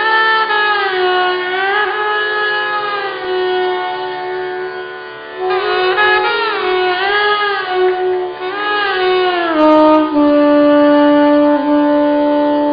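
Saxophone playing a slow Indian classical raga melody with long gliding notes over a steady drone, settling on one long held note about ten seconds in.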